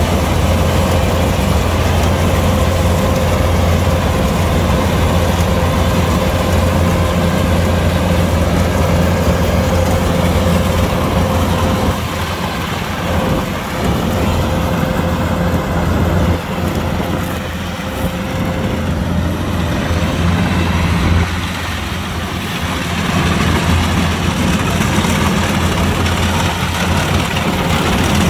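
Kubota DC-105X combine harvester running: a steady, loud diesel engine hum with a thin machine whine over it. The sound drops and wavers for a while in the middle, then steadies again.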